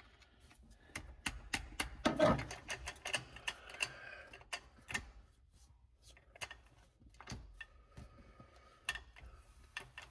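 Irregular light clicks and taps of a screwdriver and other hand tools on metal around the truck's floor-mounted shifter and its retainer, with a short pause about halfway through.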